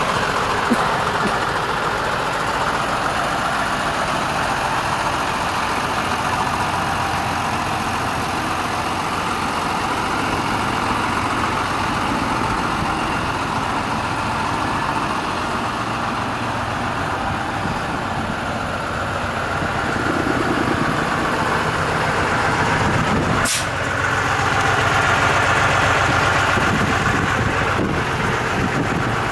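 Renault S170 fire truck's diesel engine idling steadily, growing somewhat louder near the end, with one sharp click late on.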